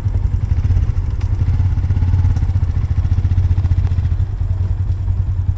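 An engine running steadily: a low, even rumble with a fine regular pulse.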